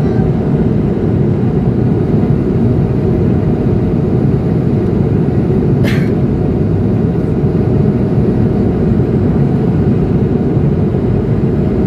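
Steady low cabin roar of a Swiss Airbus A220-100 climbing after takeoff, heard from a window seat by the wing: its Pratt & Whitney PW1500G geared turbofans and the airflow, with a faint steady hum. A brief sharp click-like sound about six seconds in.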